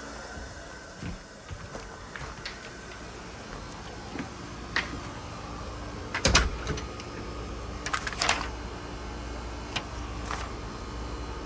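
A door being shut and locked: scattered clicks and sharp knocks over a steady low background, the loudest knock about six seconds in and a quick pair near eight seconds.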